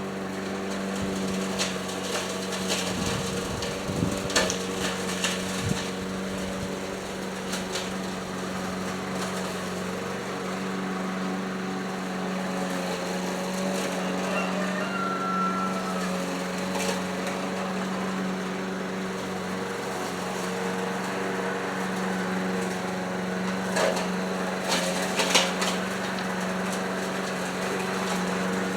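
1979 Ace Hardware push mower's small engine running steadily at a constant speed, now that its ignition points have been cleaned. There are a few sharp clicks near the start and near the end.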